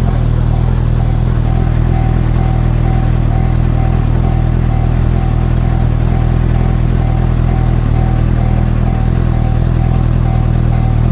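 Honda CB1000R's inline-four engine idling steadily, while a railway crossing alarm rings over it as an even, repeating high tone about twice a second.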